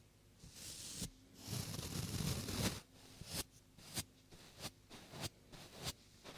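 Close-up handling of a binaural microphone's ears: soft brushing hiss, then a stretch of rubbing with a low rumble, then a run of short ticks about every half second from fingers tapping or touching the ear.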